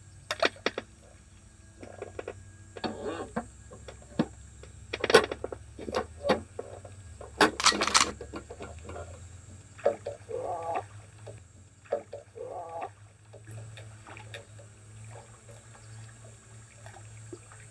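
Water splashing and scattered clicks and knocks as a hooked crucian carp is struck and played on a long pole rod; the loudest splashes come about five and eight seconds in.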